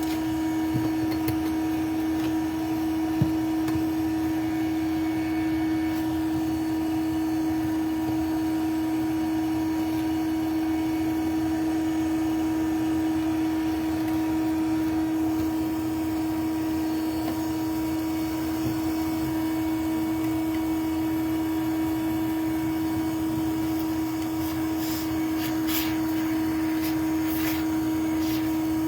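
Vacuum motor running with a steady, even hum, typical of a bee vacuum used in a live hive extraction. A few light clicks come near the end.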